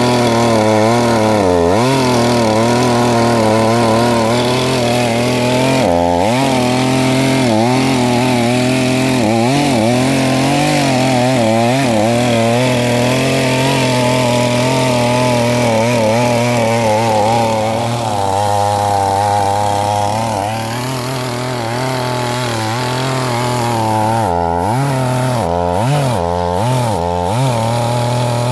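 ZimAni 450 two-stroke gasoline chainsaw running at high revs while cutting into a tree trunk, its engine note dipping again and again as the chain bites under load and then recovering. About two-thirds of the way through it runs steadier and a little quieter for a few seconds.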